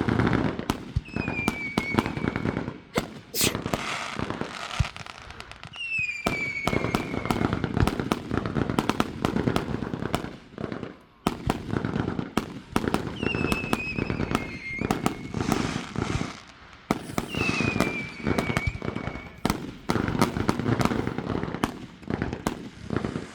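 Fireworks going off in a dense barrage of bangs and crackling pops, with four whistles that each fall in pitch over about a second.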